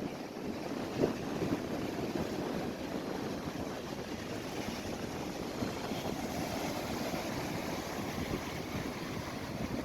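Steady surf washing onto the beach with wind on the microphone, and a brief bump about a second in.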